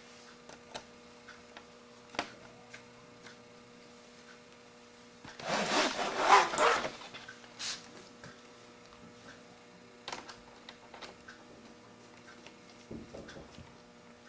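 Small clicks and taps of a screwdriver and plastic laptop parts while screws are driven into the screen lid of a laptop. About five seconds in comes a louder scraping rustle lasting a second and a half, under a faint steady hum.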